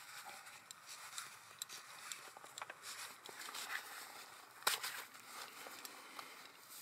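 Faint rustling with scattered light clicks, and one sharper click about two thirds of the way through.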